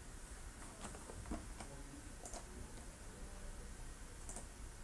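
Several faint computer mouse clicks, spaced irregularly, against quiet room tone.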